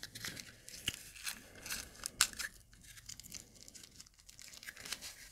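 Paper band being torn and pulled off a spool of braided linen ribbon: faint, scattered tearing and rustling with small clicks, a sharper one about two seconds in.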